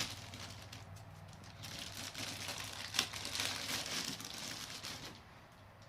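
Packaging crinkling and rustling as metal detector parts are handled and unwrapped, with a sharp click about three seconds in. It dies down near the end.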